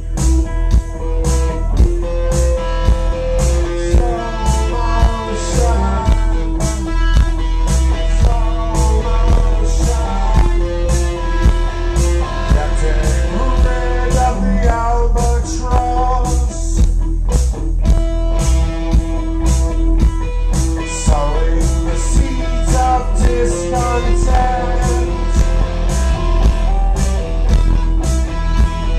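A live rock band playing: electric guitar over a steady beat, with a man singing into the microphone.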